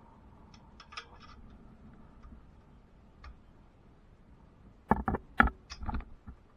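Faint scattered ticks and clicks, then a quick run of about six sharp knocks some five seconds in.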